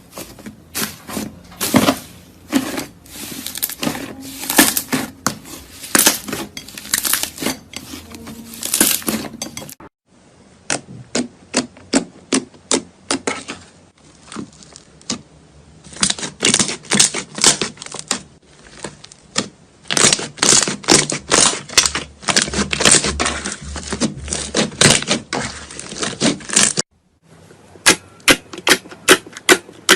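Crunchy slime being squeezed and pressed, giving rapid runs of sharp crackling and popping clicks, with abrupt changes in sound about 10 and 27 seconds in where one clip gives way to the next.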